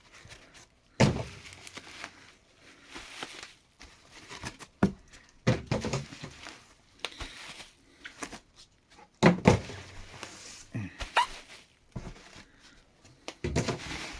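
Laptops and their packaging being handled and set down on a table: several separate thuds and knocks, with softer rustling between them.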